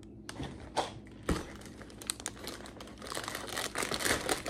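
Plastic packaging and shredded basket filler crinkling as a bagged toy is handled and pushed into a plush basket, the crackling getting busier and louder in the second half, with a soft knock a little over a second in.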